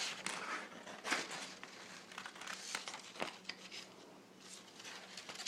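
Paper crinkling and rustling as it is handled, with a few sharp crackles scattered through.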